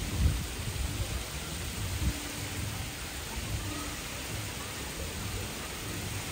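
Steady rushing hiss of water spilling over the edge of an infinity pool into its overflow channel, with wind buffeting the microphone in low rumbles, the strongest about a quarter second and two seconds in.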